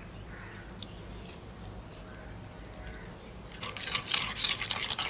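A metal spoon stirring a thick yogurt-and-spice marinade in a clay bowl. After a quiet stretch, steady scraping and clicking against the bowl begins about three and a half seconds in.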